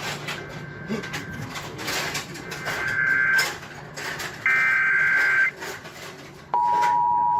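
Emergency Alert System SAME header: three bursts of screechy two-pitch digital data, each about a second long, announcing a new warning. About six and a half seconds in they are followed by the steady two-tone EAS attention signal.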